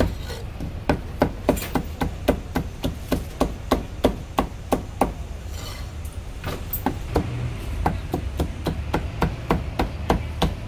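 Cleaver chopping marinated pork tripe on a wooden chopping block: rapid sharp chops, about three or four a second, with a short pause in the middle before the chopping resumes. A low steady hum runs underneath.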